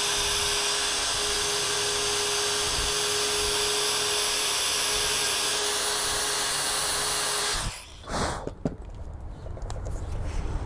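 Electric drill with a step bit running steadily as it cuts into a cheap aluminium EOS-to-NEX lens adapter, holding one even pitch. It stops suddenly about seven and a half seconds in, followed by a few faint clicks.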